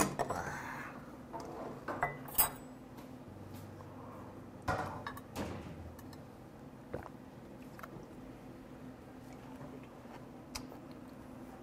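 Tableware clinking and knocking on a wooden table: a brass kettle is set down, then metal chopsticks tap a ceramic plate and a small drinking bowl is handled. These are a handful of separate sharp clicks spread over several seconds, the loudest at the start and about two and a half seconds in.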